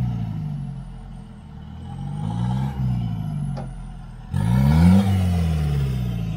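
Mitsubishi NL Pajero's engine revving up and dropping back three times, each rise quick and falling away slowly, as it pushes through mud. One short click is heard about three and a half seconds in.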